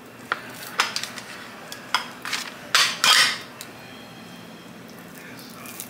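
Red plastic hand burger press being handled: a few sharp plastic clicks and knocks, then a longer clattering scrape about three seconds in as the press is set down and the pressed patty lifted out, quiet after that.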